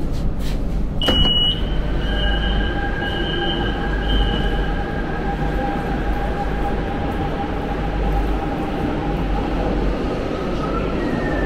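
Subway train standing at an underground station platform, with a steady low rumble and a faint steady whine. A sharp clack sounds about a second in, followed by about four short high beeps.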